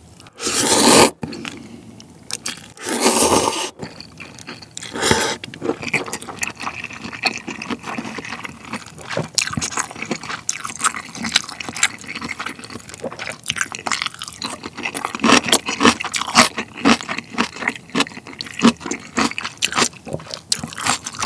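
Ramen noodles slurped into the mouth in three slurps over the first five seconds, the first two long, then close-miked wet chewing with many small clicks and smacks.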